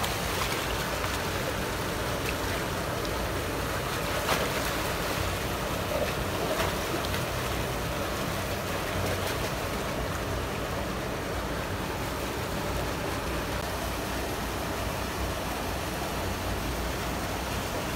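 Steady rush of water pouring over a concrete canal weir, with a few brief splashes about four and six seconds in as a dog is washed in the shallow water.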